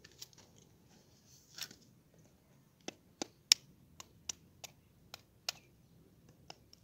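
A knife tip tapping and chipping the shell of an unhatched incubator egg: a row of about ten sharp clicks, roughly three a second, starting about three seconds in, with a couple of fainter taps and scrapes before.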